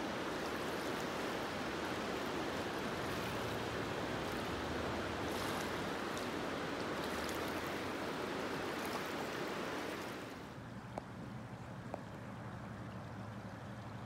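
Steady rushing of flowing river water. About ten seconds in it gives way to a quieter, steady rush with two faint clicks.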